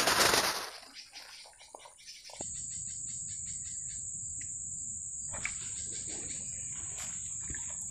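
Steady, high-pitched chirring of an insect that starts about two and a half seconds in and holds on evenly. A short burst of noise comes in the first second, with a few faint clicks later.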